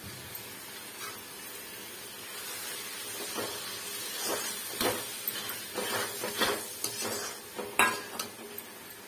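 Metal spatula scraping and knocking against a metal kadhai as a potato-and-cabbage sabzi is stirred and fried in its masala, over a steady sizzle; the stirring strokes begin about three seconds in, with one loud knock near the end. The raw gram flour (besan) in the masala is being roasted before water goes in.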